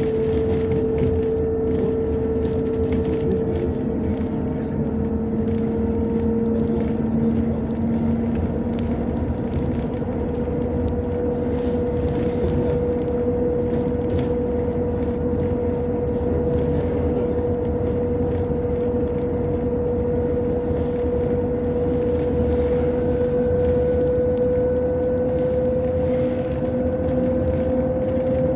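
A vehicle running steadily: a continuous motor hum and noise, with one strong tone that rises slowly in pitch.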